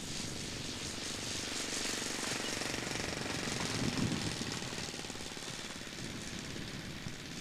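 Laser 180 four-stroke glow engine of a large model Tiger Moth biplane ticking over at idle with a rapid low thumping beat as the model lands and rolls across grass. About four seconds in, it briefly swells louder, then slowly gets quieter.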